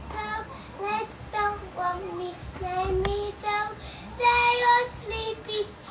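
A young boy singing a tune in a high child's voice, a run of short notes and longer held ones.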